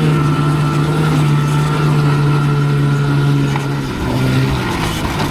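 Snowmobile engine running steadily close by, its pitch dropping slightly about four seconds in.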